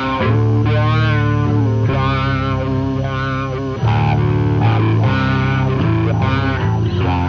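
Stoner rock song: heavily distorted electric guitar chords over bass guitar, getting louder about four seconds in.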